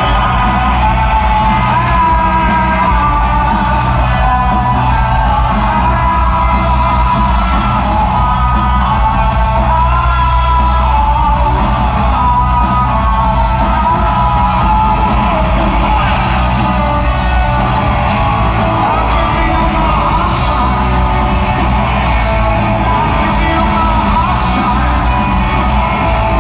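Live rock band playing while a male lead singer sings, heard from the audience in a large hall, with a heavy, boomy low end.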